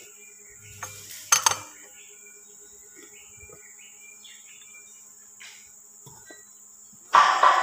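Steel breaker bar and socket clanking against the pinion shaft and gear of a differential, with one loud metallic clank about a second in and a few lighter metal clinks after. Faint chirping and a steady high hiss sit behind it, and music comes in near the end.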